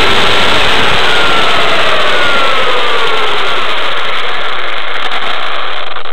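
Onboard sound of an RC car running on a Novak HV Pro 5.5 brushless motor: a loud, dense rushing noise of tyres and chassis vibration with a motor whine that falls in pitch as the car slows. It cuts off suddenly at the end as the car comes to a stop.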